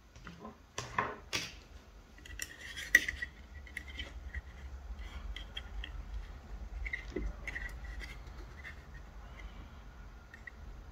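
Light metallic clicks, taps and rubbing from handling the steel clip arms of a helping-hand stand. A cluster of sharp clicks in the first three seconds gives way to softer scattered ticks and scraping.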